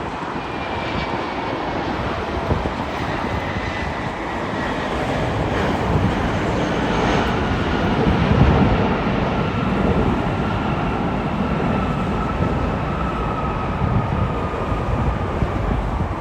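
Boeing 767-300ER twin-jet airliner passing on its landing approach: a broad jet-engine roar that swells to its loudest about halfway through, with a faint whine falling slowly in pitch.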